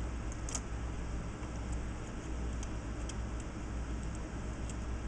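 Light, scattered metallic clicks of small hardware being handled: washers and nuts going onto potentiometer shafts on a panel. A steady low hum runs beneath.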